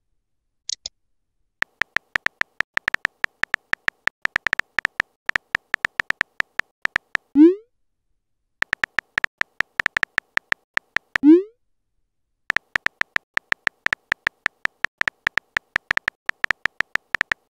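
Texting-app keyboard sounds: runs of quick, uneven typing clicks, each with a faint high beep, stopping and starting as letters are typed. Twice a short rising pop marks a message being sent, and a brief high chirp comes under a second in.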